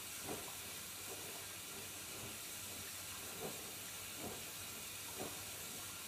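Whirlpool FSCR12441 washing machine taking in water for its wash: a faint, steady hiss of water running in.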